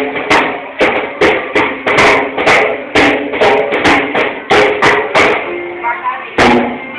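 A toddler banging unevenly on a drum kit: loud, irregular hits about two to three a second, each ringing briefly, with a pause of about a second near the end.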